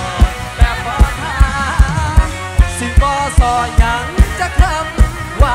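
Live band playing an upbeat Thai dance song: drum kit with a steady kick drum about two and a half beats a second, electric guitar, and a bending lead melody over it.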